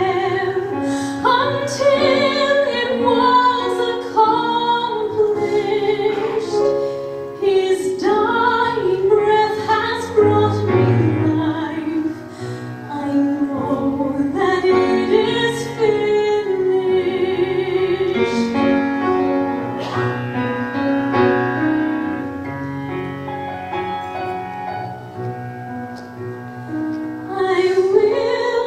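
A woman singing a slow worship song with piano accompaniment, a little softer for a few seconds near the end.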